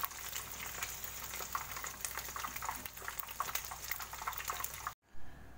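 Marinated chicken pieces deep-frying in hot oil in a kadhai, sizzling and crackling with many small pops; the sound cuts off abruptly near the end.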